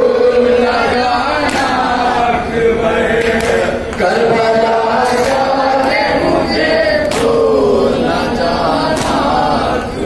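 Noha, a Shia Muharram lament, sung by a male reciter into a microphone, with a group of men and boys chanting it together; a sharp beat falls about every two seconds.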